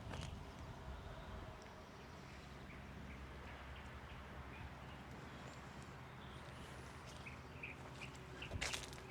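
Faint outdoor ambience: a steady low rumble with a few faint bird chirps, and a sharp scuff or step near the end.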